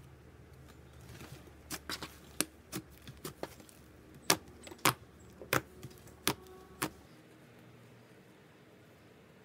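Butter slime being pressed and poked with fingers, giving a series of sharp clicks and pops, about a dozen over some five seconds. The clicks stop a couple of seconds before the end, leaving only faint handling.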